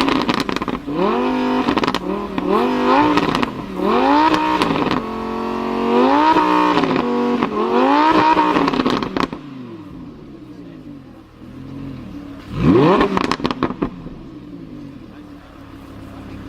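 Lamborghini Huracán LP610-4's naturally aspirated V10 revved in a series of short, sharp blips, with exhaust crackles and pops as the revs drop. After a long fall in revs, it gives one more hard blip with crackling about thirteen seconds in, then settles to a steady idle.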